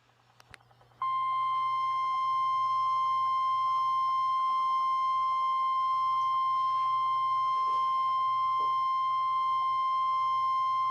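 NOAA Weather Radio 1050 Hz warning alarm tone: one steady, unwavering beep that starts about a second in and holds for about ten seconds before cutting off sharply. It is the alert signal that a severe thunderstorm warning broadcast is about to follow.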